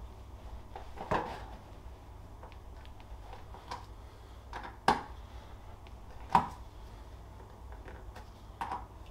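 Hand studding tool pushing metal studs into glued holes in a Snowshoe XL fatbike tyre's rubber tread. It gives a series of sharp clicks and knocks, the three loudest a second or more apart, with fainter ones between.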